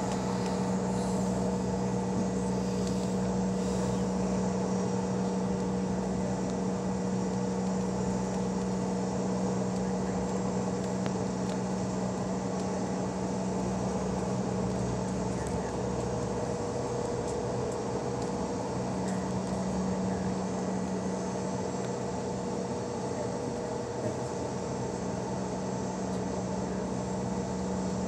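Steady cabin noise of a Bombardier CRJ-700 regional jet taxiing, its rear-mounted CF34 turbofans at idle along with the cabin air system: an even hum with a few held tones that stays level throughout.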